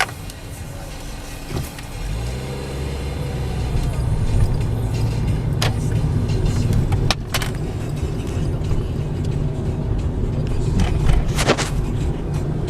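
Car engine and road rumble as the car drives off, the engine rising in pitch about two seconds in and then running steadily. A few sharp clicks or knocks are heard along the way.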